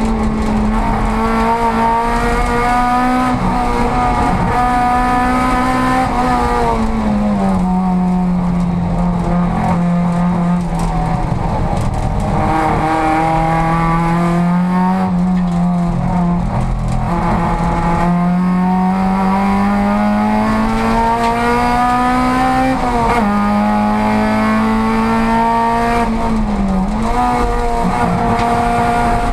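Volkswagen Golf race car's engine under racing load, heard from inside the cabin. The revs fall for a stretch about a quarter of the way in, climb steadily through the second half, then drop sharply at a gear change, with another brief dip near the end.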